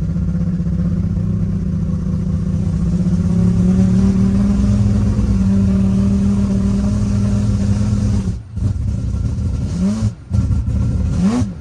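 Mazda RX3's 26B four-rotor rotary engine running hard under load. Its note climbs slowly and holds, cuts away sharply about eight and a half seconds in, then shows two quick flares of revs up and back down near the end.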